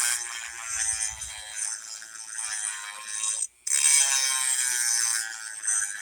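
Dremel rotary tool running on low speed with its grinding bit against the back side of a steel lawn mower blade, deburring the edge: a steady buzzing whine. It cuts out briefly about three and a half seconds in, then comes back louder.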